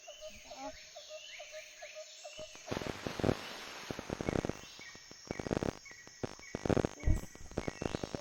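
Short chirps repeating about four times a second for the first two seconds. Then, about two and a half seconds in, loud irregular rustling and crunching close to the microphone takes over, with short repeated calls above it.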